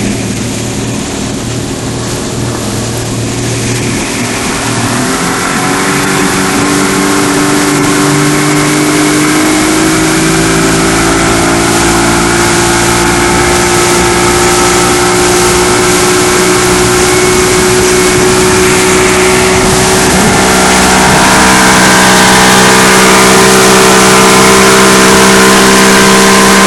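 Evinrude outboard motor running at speed under way. Its pitch rises as it is throttled up over the first ten seconds or so, and it gets louder again about twenty seconds in.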